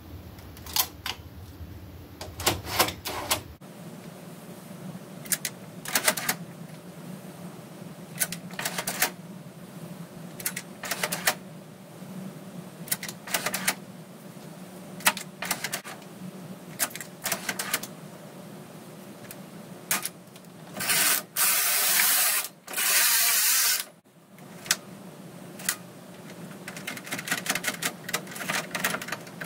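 Metal needles of a Brother KH710 knitting machine clicking and clattering as they are pushed back and forth along the needle bed by hand, testing that they slide freely. About two-thirds in come two louder rattling sweeps of about a second each, and near the end the knobs and levers of the pattern centre click as they are moved.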